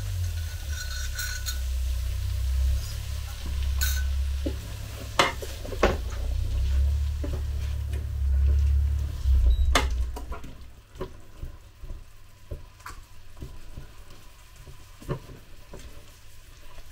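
Tongs stirring and scraping a sizzling mix of peppers, tomatoes, onion and bacon in the Ninja Speedi's cooking pot, working the browned bits off the bottom after a splash of stock, with sharp clicks of the tongs against the pot. A low rumble runs under the first ten seconds or so, then drops away, leaving sparser clicks.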